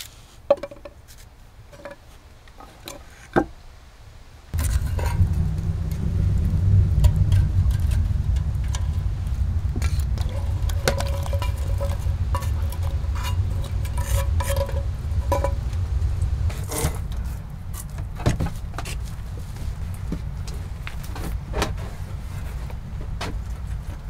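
A knife clicks a few times while slicing mushrooms over a small pan. About four and a half seconds in, a steady low rumble starts suddenly, with frequent crackles and light ticks as sliced mushrooms are pushed from a wooden spatula into a pot.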